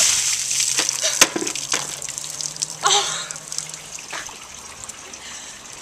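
A bucket of ice water gushing down over a person and splashing onto the ground, loudest at the start and dying away to a trickle and drips. A short voice-like cry comes about three seconds in.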